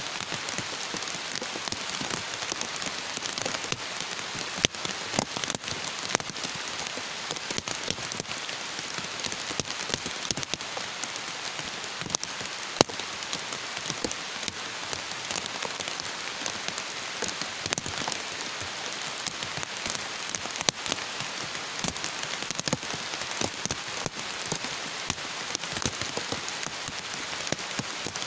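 Heavy rain falling steadily, a continuous hiss with many sharp ticks of drops striking close by.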